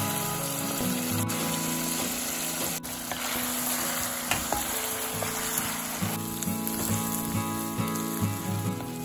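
Smoked pork pieces sizzling and frying in a hot pot of thick, reduced sauce while being stirred with a wooden spatula, with a few sharp clicks. Background music plays underneath.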